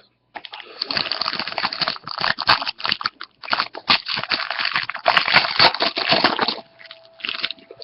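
Trading card packaging crinkling and rustling as it is torn open and handled, with many small crackles and clicks; it stops about a second before the end.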